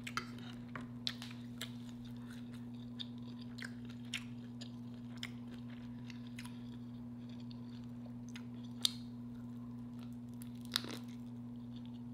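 Close-up chewing and crunching of fried lobster tail: scattered crisp crunches and mouth clicks, the sharpest about nine and eleven seconds in, over a steady low hum.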